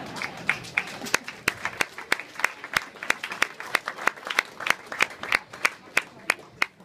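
A small audience clapping, heard as many separate, distinct claps rather than a dense roar.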